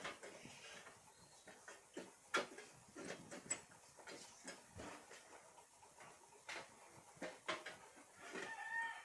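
Scattered light clicks and knocks of computer parts being handled and fitted into a PC case, the sharpest about two seconds in. A short call with a level pitch is heard near the end.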